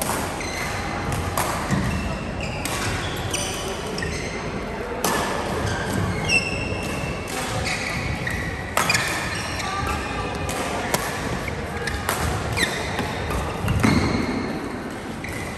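Badminton play in a gym hall: sharp racket hits on the shuttlecock scattered through, short high shoe squeaks on the court floor, and voices in the background.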